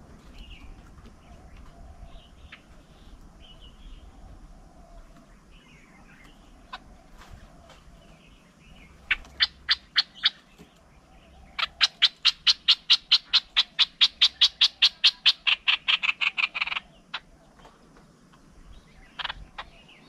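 A loud, rapid series of sharp clicking calls from an animal, about six a second: a short run of them, then a longer run lasting about five seconds, with a couple more near the end. Faint bird chirps come before them.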